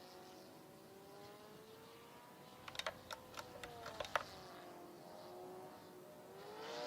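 A faint small-motor hum, steady with a slowly drifting pitch, as the vehicle moves away. A short run of light clicks comes about three seconds in, and the hum swells near the end as it comes back.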